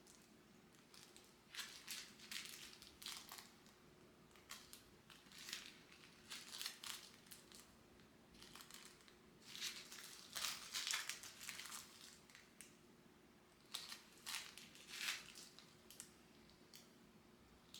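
Soft, irregular rustling and crinkling from material being handled, in uneven bursts with a busier stretch in the middle, over a faint steady hum.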